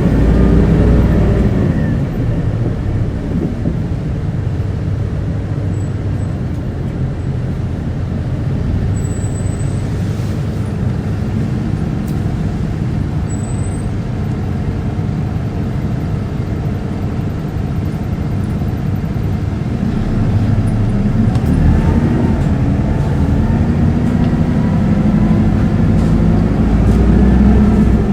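An Isuzu Erga city bus's four-cylinder turbo-diesel engine, heard from inside the cabin while driving, with constant road rumble. The engine drops in pitch at the start, runs steadily through the middle, and climbs in pitch again over the last third as the bus accelerates.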